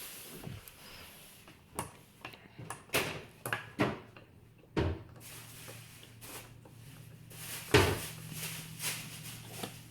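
Plastic toy fence pieces clicking and knocking as they are pushed onto a plastic toy farm playset: a string of short knocks at uneven intervals, the loudest about eight seconds in.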